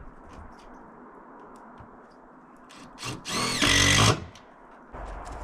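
A power drill spins up with a rising whine, runs for about a second, then stops. Before it come a few small ticks and knocks.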